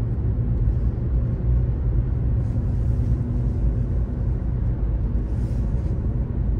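Steady low engine and road rumble inside a moving car's cabin, with the windscreen demister fan blowing.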